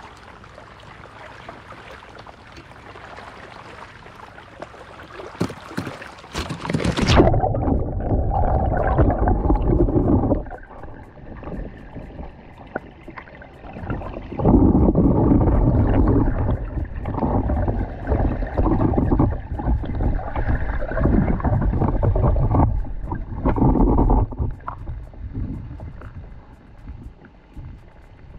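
Fast canal water rushing past and splashing against a small floating boat, heard close from the camera riding on it. It starts as a steady hiss, then about seven seconds in turns muffled and much louder, with long surges of splashing water.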